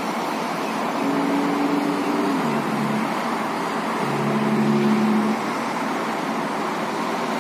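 Steady road traffic noise from a busy multi-lane highway. A passing vehicle's engine hum drops in pitch about two and a half seconds in. A second, louder engine hum swells about four seconds in and cuts off about a second later.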